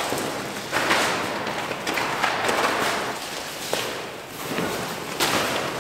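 Synthetic groundsheet and sleeping mat rustling and flapping as they are shaken out and spread on the ground, in a series of swishing bursts.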